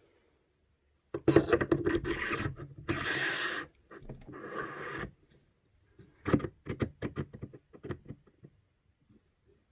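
Parts of a Silverback SRS airsoft sniper rifle being fitted back together by hand: a few seconds of rubbing and scraping, then a run of light clicks and knocks.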